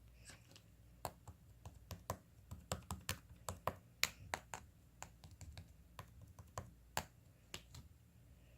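Keys clicking on a computer keyboard in an irregular run of quick taps, a few per second, stopping near the end.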